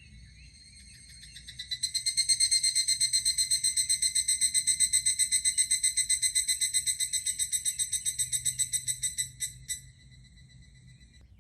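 An insect chirring in a fast, even pulse of about ten beats a second. It swells in about two seconds in, holds steady, then breaks off near the end.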